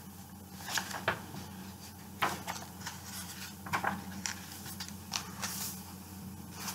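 Paper pages of a picture book rustling and flicking as it is handled and a page is turned: a scattering of short papery rustles and clicks over a faint low hum.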